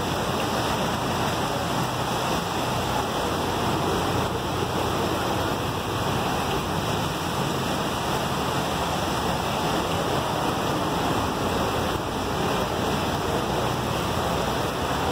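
Heavy tropical rain pouring down in a steady rush, with vehicles churning and splashing through the floodwater on the street.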